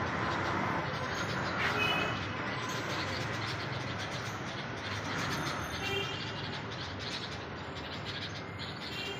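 A few short bulbul chirps over a steady hum of city traffic.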